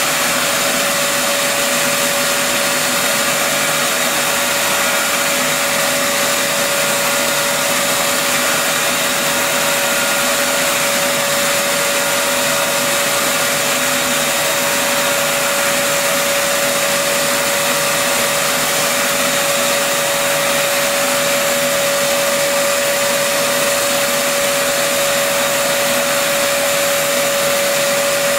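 Trim router spindle on a Shapeoko CNC running steadily with a high, even whine while it mills a white block, along with the hiss of the dust extraction vacuum drawing through the router's brush dust boot.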